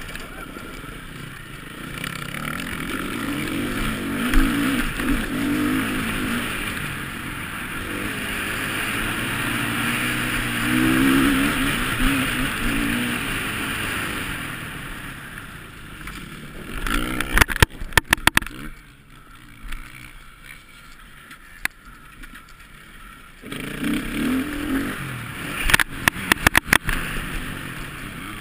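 Motocross bike engine heard from an on-bike camera, revving up and down as the rider works the throttle around the track. About seventeen seconds in there is a cluster of sharp knocks, then the engine goes quieter for about five seconds before it picks up again, with more knocks near the end.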